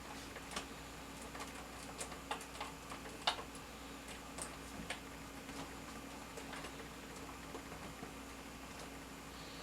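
Scattered small clicks and taps of hands working plastic and foam parts and a screwdriver while fitting the elevator of a foam RC airplane. The loudest click comes about three seconds in, over a faint steady hum.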